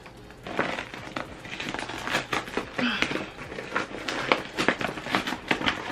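Plastic packaging crinkling and crackling as a package is handled and torn open by hand: a long run of small crackles and rustles.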